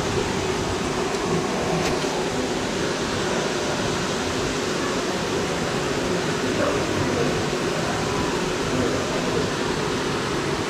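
Steady rushing noise with a low steady hum underneath, holding even throughout with no distinct knocks or calls.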